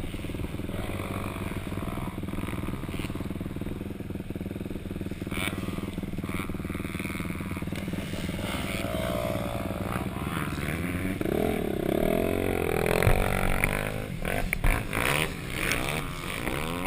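Dirt bike engine running steadily. Other motocross bikes rev up and down as they pass, from about two-thirds of the way in, with a few knocks and clatter near the end.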